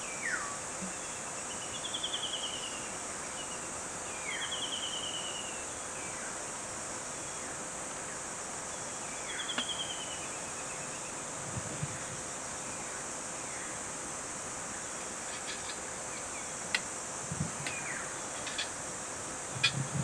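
Forest ambience: a steady high drone of insects, with birds calling every few seconds in short falling whistles and quick trilled phrases. A few light clicks come near the end.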